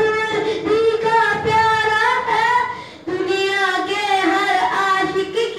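A boy singing a naat, an Urdu devotional hymn in praise of the Prophet, solo and without instruments, in long held, wavering notes. There is a brief breath pause about three seconds in.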